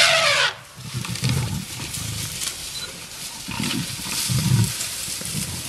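African lions growling and snarling in low, rough rumbling bursts, about four of them a second or so apart, while feeding on a warthog kill. A loud harsh cry is fading out at the very start.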